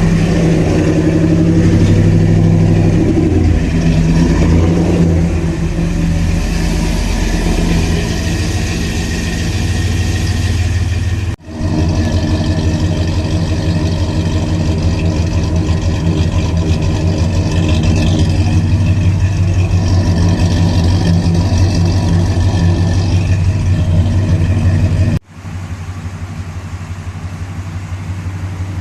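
The 5.7-litre Hemi V8 of a 2014 Ram 1500 with an aftermarket camshaft, running at idle with a little rise and fall in revs in the first few seconds. The sound cuts out abruptly twice, and after the second cut it is somewhat quieter.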